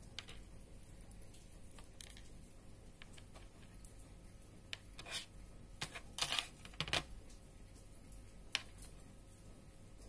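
Small clicks and taps of beads, wire pins and jewellery pliers being handled over a plastic tray, with a short flurry of louder clicks about five to seven seconds in and one more near the end.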